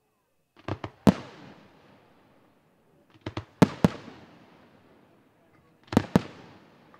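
Aerial firework shells bursting in three groups of sharp bangs, about two and a half seconds apart. Each group trails off in a fading echo.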